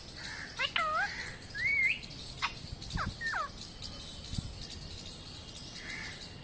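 A pet parrot makes several short whistled chirps that swoop up and down in pitch during the first half, mixed with a few sharp clicks.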